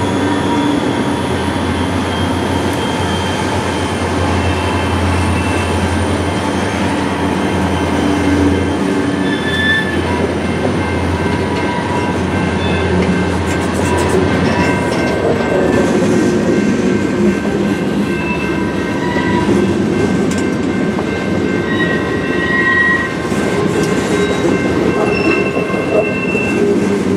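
Freight train passing close by: the low drone of its diesel locomotives fades about halfway through, giving way to boxcars rolling past with a steady rumble of wheels on rail and brief high-pitched wheel squeals.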